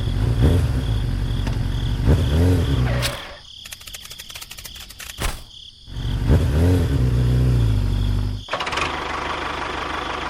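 An engine running and revving, with a rise in pitch about two and a half seconds in. It drops away a little after three seconds and comes back the same way around six seconds. A steady hiss takes over near the end.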